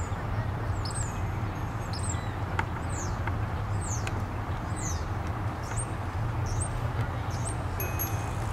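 A bird calling over and over, short high notes that each fall in pitch, about two a second, over a steady low rumble.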